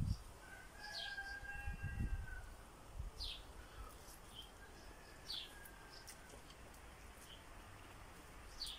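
Small songbirds chirping in the background: quiet, short, high chirps that slide downward, repeating every second or two.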